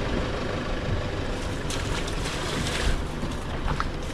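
Wind buffeting the microphone over a steady low rumble, with a few faint ticks.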